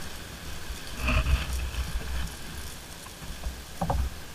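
Water lapping against a kayak's hull, with wind buffeting the microphone in a low rumble. Two louder thumps, about a second in and near the end.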